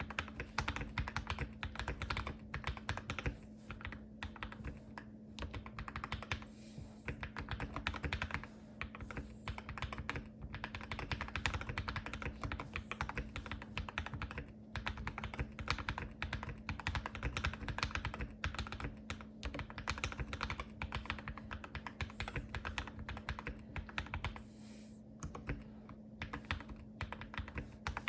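Continuous fast typing on a Keychron K2 aluminum-frame mechanical keyboard with lubed KTT Kang White V2 linear switches, replica GMK Galaxy keycaps, case foam and Poron switch pads, with brief pauses near 7 and 25 seconds. A faint steady hum runs underneath.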